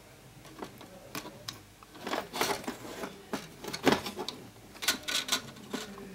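Small clicks, taps and scraping from a TV circuit board being handled while a ceramic capacitor is desoldered with a soldering iron. The sharpest knock comes about 4 s in.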